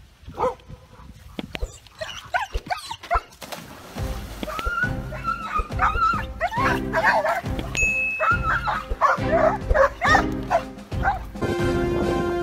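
Dogs barking repeatedly, with background music that has a steady beat coming in about four seconds in.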